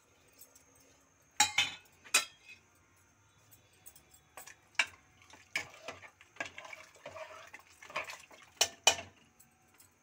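Metal ladle stirring chickpea curry in an aluminium pressure-cooker pot, clinking and knocking against the pot's sides in irregular strokes, with a stretch of wet scraping a little past the middle.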